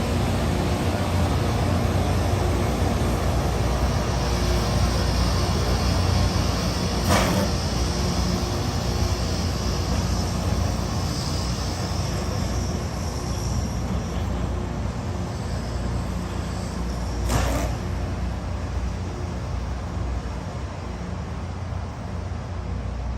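Diesel engine of heavy rail equipment running steadily with a deep rumble. A high hiss rises about four seconds in and lasts some ten seconds, and two sharp clanks come about ten seconds apart.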